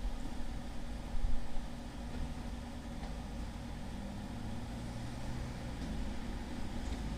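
Honda CBR1000RR inline-four engine running steadily at low revs, with a brief louder bump about a second in.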